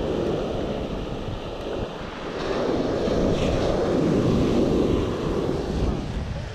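Ocean surf breaking and washing up the beach, with wind buffeting the microphone; a wave crashes and rushes in, swelling louder around the middle before easing off.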